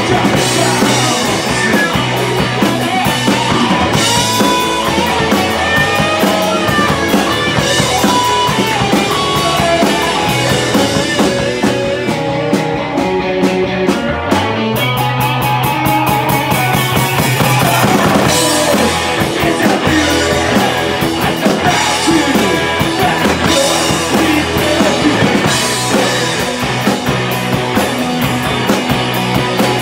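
Live rock band playing loudly: drum kit, electric guitars and bass. About halfway through, the cymbals drop out for a couple of seconds before the full band comes back in.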